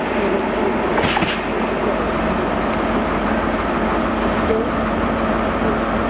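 A freight train's loaded timber wagons and covered wagons rolling away over points, a steady rumble and clatter of wheels on rail with a low hum, and a few brief faint squeaks in the second half.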